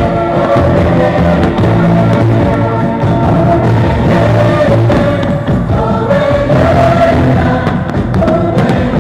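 Music with singing voices, choir-like, holding long notes over a steady bass line.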